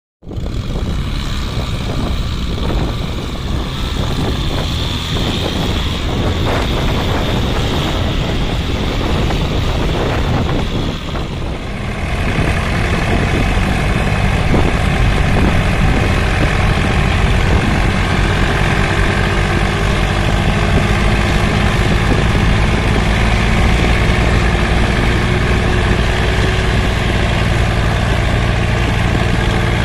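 Massey Ferguson tractor diesel engines running steadily as one tractor tows another's heavily loaded trolley. The sound becomes louder and steadier from about twelve seconds in.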